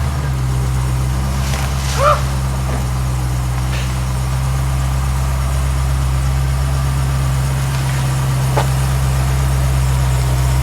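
Dodge Durango SRT Hellcat's supercharged 6.2-litre V8 idling steadily after being started, confirmed still running. A brief squeak sounds about two seconds in.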